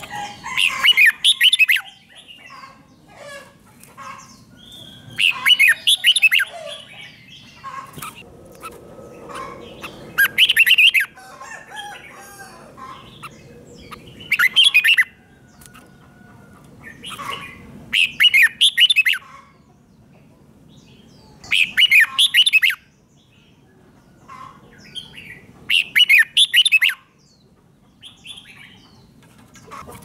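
Red-whiskered bulbul singing: seven loud, quick phrases, one about every three to four seconds, with softer chirps between them.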